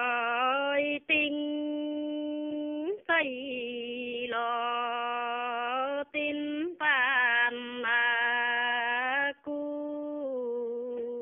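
An elderly woman singing a Dao folk song unaccompanied, in the slow, long-held style of Dao antiphonal singing. Each long note opens with a slight slide in pitch, and the notes are broken by short breaths every two or three seconds.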